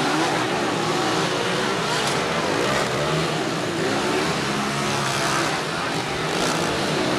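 Motocross dirt bike engines revving up and down on the track, over a steady murmur of crowd chatter.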